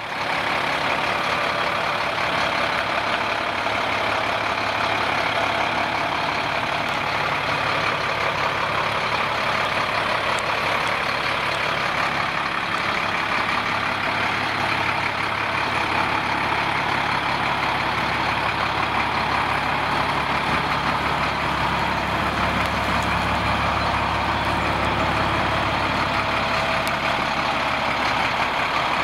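2008 International 4400 truck's diesel engine idling steadily, its low rumble growing stronger about three-quarters of the way through.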